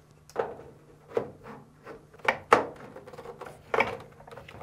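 Hard plastic idler pulley bracket clacking and scraping against the dryer's motor housing as it is fitted and its spring compressed by hand: about six short, sharp knocks, the loudest about two and a half seconds in and near the end.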